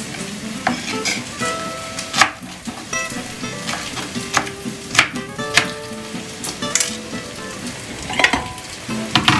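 Knife cutting peeled pineapple into chunks on a cutting board: about ten sharp, irregularly spaced cuts, over a steady sizzle of turkey slices frying in lard, with soft background music.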